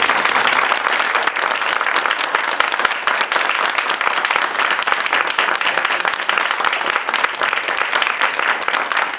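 Studio audience applauding, a steady, dense clapping of many hands.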